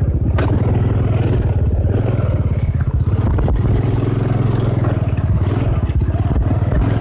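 Small motorcycle engine running steadily at low speed on a rough track, with a steady rushing noise over it.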